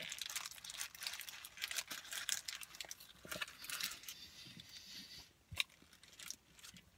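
Paper sandwich wrapper crinkling as it is handled while a biscuit breakfast sandwich is bitten and chewed. The crackling is dense for the first few seconds, then thins out, with one sharp click a little after five seconds.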